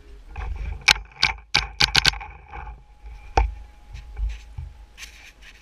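Handling noise on a paintball marker with a barrel-mounted camera: a run of sharp clicks and knocks, several in quick succession, over cloth rustling.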